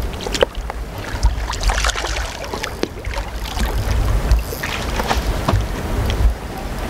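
Wind buffeting the microphone with a steady low rumble, over splashing from a hooked carp thrashing at the water's surface as it is played close to the bank.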